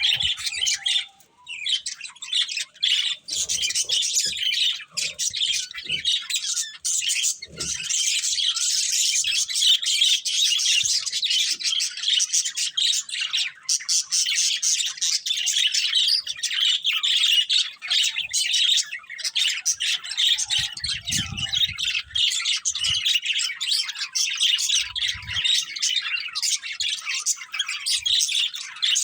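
Budgerigars chirping and chattering without a break, a dense run of quick high twitters with occasional squawks.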